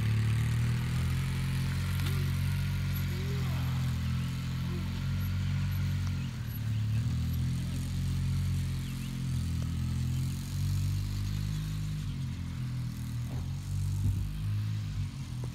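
ATV (quad bike) engine running steadily as it is ridden, its low note wavering slightly up and down.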